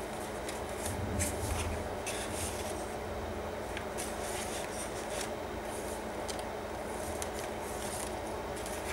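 Paper pages, pockets and tags of a handmade junk journal rustling and brushing as hands turn and handle them, in short scattered strokes over a steady low hum, with a soft low bump about a second in.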